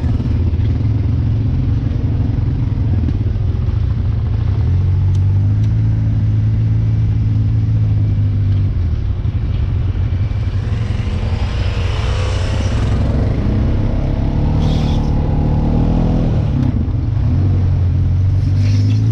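A vehicle's engine running steadily, its pitch rising and falling several times as it speeds up and slows.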